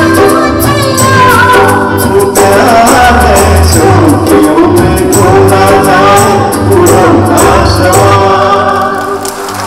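A male and a female singer performing a Hindi film song live with a band, the keyboard, guitars and hand drums keeping a steady beat. The music eases off near the end.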